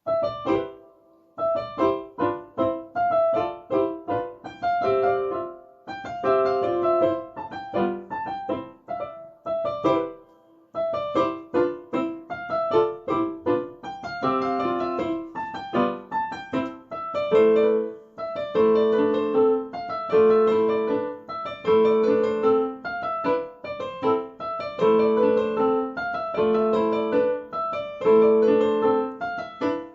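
Solo piano playing a quick Allegro from memory: fast, separate notes in short phrases, with brief breaks about a second and a half, six and ten seconds in. From about seventeen seconds a lower repeated figure comes in under the melody.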